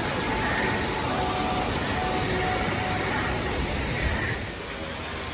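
Heavy rain pouring down, a steady hiss that drops in level about four seconds in.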